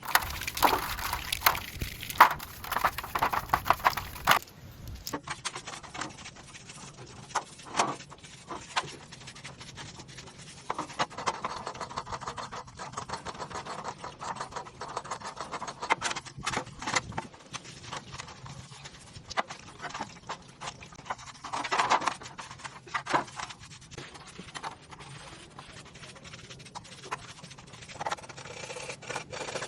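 Irregular clicks, knocks and scrapes of hand tools and metal parts being handled during mechanical repair work, busiest and loudest in the first few seconds.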